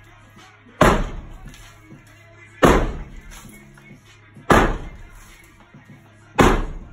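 Sledgehammer striking a brick chimney four times, evenly about two seconds apart, each blow a sharp crack with a short ringing tail.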